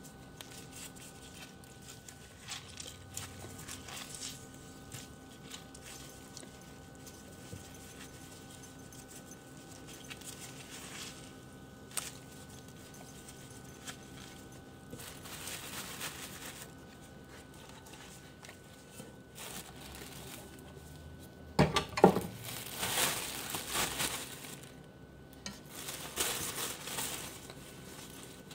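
Gloved hands handling damp, torn cardboard pieces in a bowl: faint rustling with small knocks. Louder crinkling of a clear plastic bag comes in bursts about two-thirds of the way through and again near the end, as the cardboard is packed into it.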